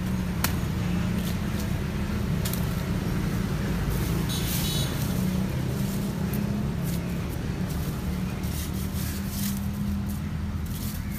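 A steady low drone of vehicle engines, with a few short sharp snaps and clicks as leafy cane stems are struck and stripped with a sickle.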